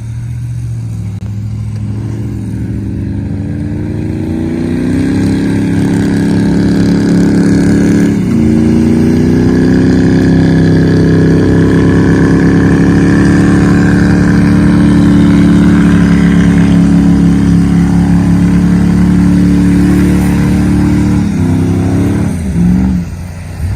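An off-road truck's engine revving up and held at high revs for about fifteen seconds, with a brief dip about eight seconds in, then dropping back near the end.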